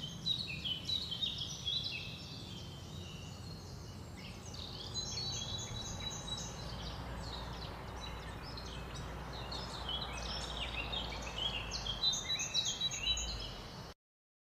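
Many small birds chirping over a steady low background noise, busiest at the start and again toward the end; the sound cuts off abruptly just before the end.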